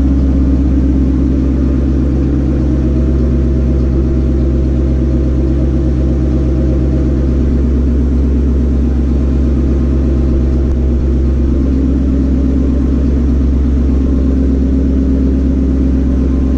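A 2018 Ford Mustang GT's 5.0 L Coyote V8 running steadily with a low, even drone. Its tone shifts slightly about two-thirds of the way through.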